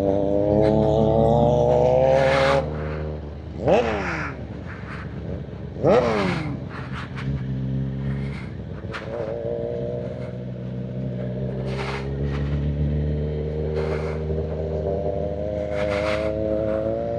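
Sport bike's inline-four engine heard from the rider's seat, pulling up steadily in revs, then easing off a couple of seconds in. Two short, loud, quick drops in engine pitch follow about four and six seconds in, then it cruises at lower revs and slowly climbs again near the end.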